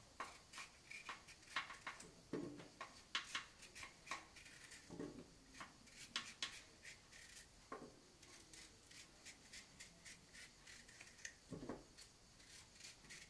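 Faint, irregular scrapes and little clicks of a kitchen knife peeling the hard skin off a long Sicilian cucuzza squash (lagenaria longissima), strip by strip.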